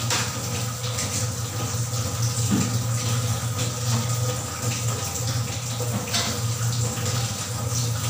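A steady rushing, water-like noise over a continuous low hum, with no distinct single event.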